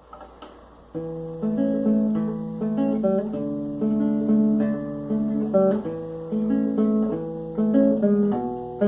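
Acoustic guitar playing a song intro in a picked, arpeggiated chord pattern, starting about a second in.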